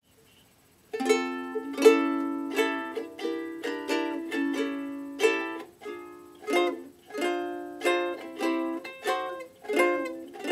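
Solo ukulele playing a slow chord introduction, starting about a second in. Each strummed chord rings out and fades before the next.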